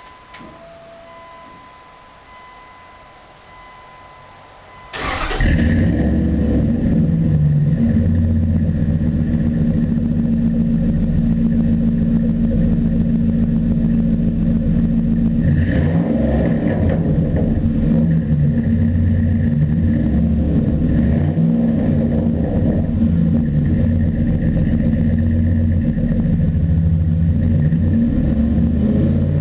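A 2001 Dodge Dakota's 4.7-litre V8 is started about five seconds in and settles into a steady idle through Flowmaster 40 series dual exhaust with the third catalytic converter removed. Before it starts there are only faint steady tones.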